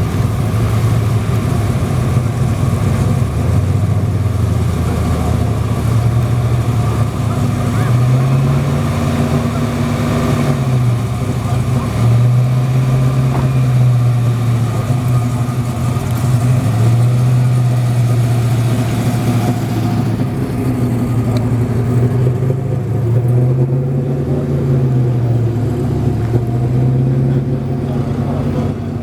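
Vehicle engine running steadily, its speed rising briefly and falling back a few times.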